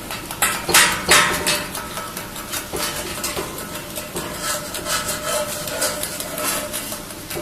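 H-beam 3-in-1 machine test-welding: arc welding crackling over a steady machine hum, with two loud knocks about a second in.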